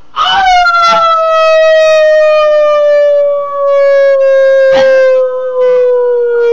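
A single long, loud howl held unbroken for about six and a half seconds, sliding slowly down in pitch, with two short sharp sounds over it, about a second in and near five seconds.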